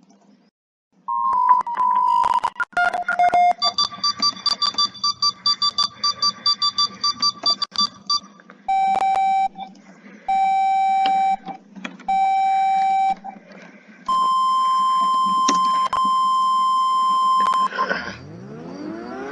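Electronic emergency-alert alarm tones: a short pair of tones, then several seconds of quick pulsing beeps, then three single-pitch beeps about a second long each, then one long steady tone. A siren begins to rise near the end.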